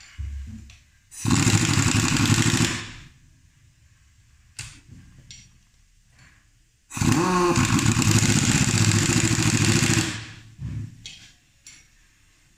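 Pneumatic impact wrench hammering on the flange bolts of an air brake booster cylinder in two bursts. The first lasts about a second and a half; the second, starting about seven seconds in, runs about three seconds and opens with a quick rising whine as the motor spins up. A few light metal clicks fall between them.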